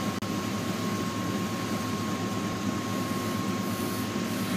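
Steady background hum and hiss with a thin, constant high whine, like a running fan or air-conditioning unit; it drops out for an instant just after it begins.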